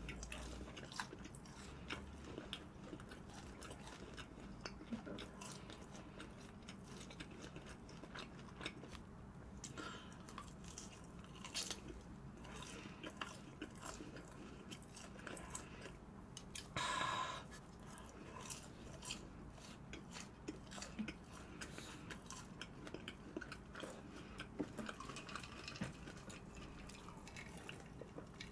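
Faint close-miked chewing and crunching of crispy fried boneless chicken, with one brief louder sound a little past halfway.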